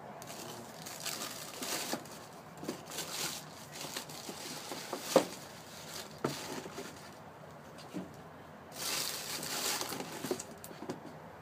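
Paper crinkling and rustling from handling a sneaker box and its packing, with scattered light knocks and clicks; the sharpest knock comes about five seconds in.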